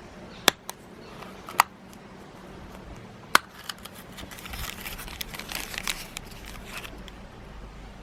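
Handling of capsule-toy packaging. A few sharp plastic clicks come in the first few seconds, then a plastic wrapper crinkles for a few seconds.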